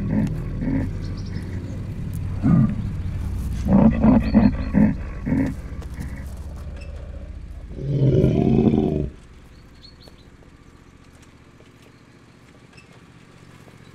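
Horror sound design: a low droning score with deep animal-like growls, building to a loud creature roar about eight seconds in that cuts off abruptly, leaving faint outdoor ambience.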